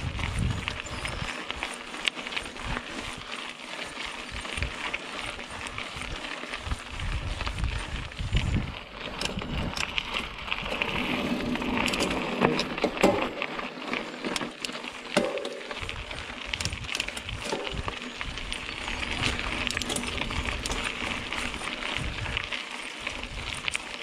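Mountain bike ridden along a dirt forest singletrack: tyre noise on the trail with frequent small clicks and rattles from the bike, and irregular gusts of wind buffeting the microphone.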